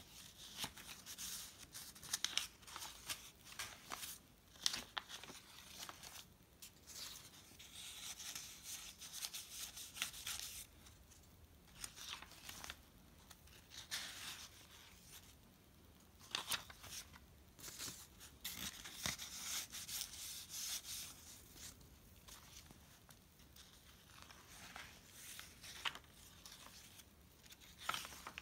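Paper pages of a handmade junk journal rustling as they are turned, lifted and unfolded by hand, in irregular bursts of rustle with the odd sharp tick of a page edge.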